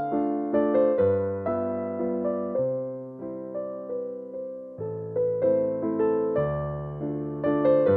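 Background piano music: a melody of single struck notes, each dying away, over lower notes.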